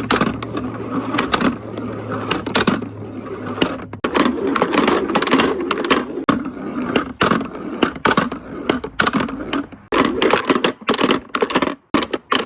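Marbles rolling and clattering down a marble-run course: a continuous rolling rumble packed with quick clicks and clacks, stopping abruptly near the end.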